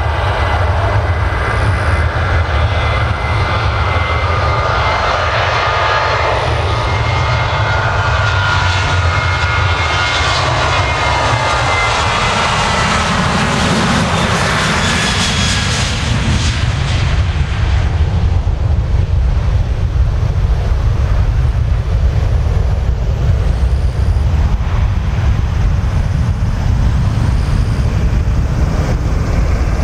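Boeing 737-800's CFM56-7B turbofan engines at takeoff thrust as the jet rolls down the runway. A whistling, whining tone falls in pitch as it passes close by about halfway through, then a deep rumble continues as it climbs away.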